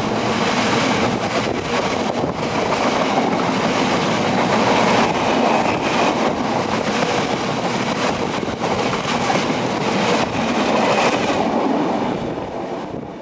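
A freight train of empty oil tank wagons rolling past close by, its wheels clattering over the rail joints. The sound falls away near the end as the last wagon goes by.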